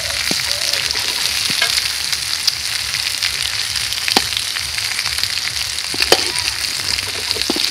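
Stuffed snake gourd pieces sizzling steadily in hot mustard oil in a shallow pan, with a few sharp clicks of a steel spatula touching the pan as the pieces are turned.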